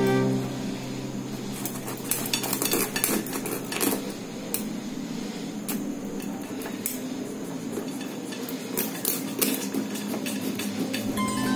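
Kitchen knife cracking and scraping through a raw spiny lobster's hard shell against a cutting board, in irregular clicks and crunches as the blade is worked through.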